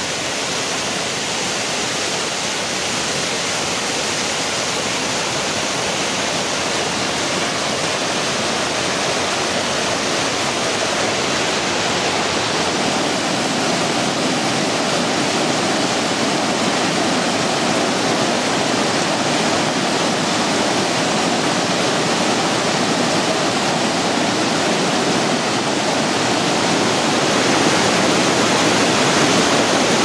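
Small rain-forest stream cascading over boulders, a steady rush of water that grows slightly louder toward the end.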